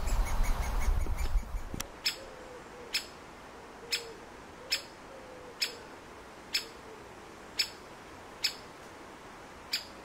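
Great spotted woodpecker giving its sharp single-note call, repeated about once a second, nine times from about two seconds in. A low rumble fills the first couple of seconds.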